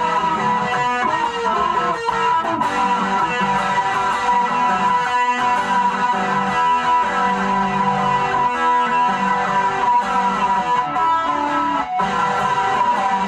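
Guitar played steadily as a continuous run of short plucked notes, with a steady high tone held underneath.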